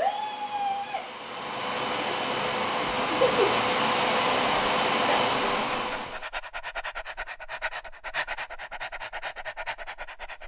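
A dog gives a short whine at the start, over the steady running noise of a vacuum cleaner, which swells a little after a second and then fades out about six seconds in. A quieter, fast rhythmic beat follows to the end.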